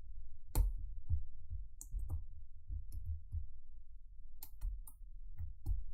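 Lockpick and tension wrench clicking and scraping in the keyway of a four-pin Biltema padlock during single pin picking. Irregular sharp metal clicks, one louder about half a second in and a quick run of clicks near the end.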